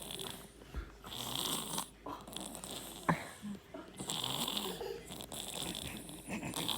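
Snoring: one long, noisy snore about every two and a half seconds. A short click comes about three seconds in.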